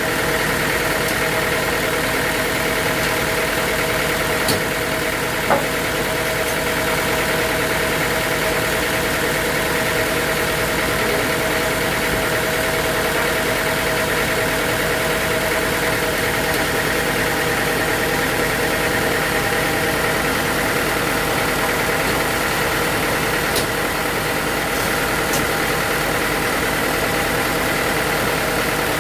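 Sawmill machinery running at a steady speed: an engine hum with a steady whine over it and a few light knocks.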